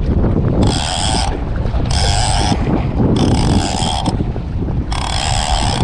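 Accurate Valiant 600NN conventional jigging reel buzzing in four short bursts about a second apart, under the load of a large fish on the line, over wind and sea noise.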